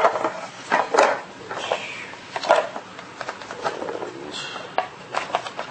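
Irregular hard-plastic clicks and knocks as the plastic wheel of a Harley-Davidson Power Wheels ride-on toy is handled and fitted onto its axle.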